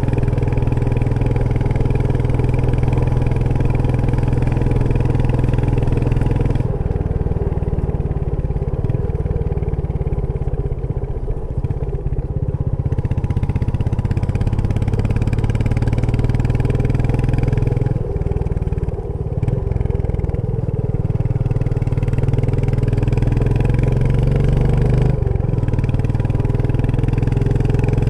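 Royal Enfield Meteor 350's single-cylinder engine and exhaust running under way, with a steady thumping note that changes abruptly three times, about a quarter of the way in, around two-thirds, and near the end, as throttle and gears change.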